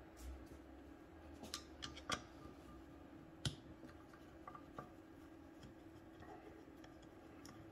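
A screwdriver working the base-plate screws of a Rochester 4GC carburetor, with a few faint, scattered metallic clicks and taps, the clearest about halfway through, over a faint steady hum.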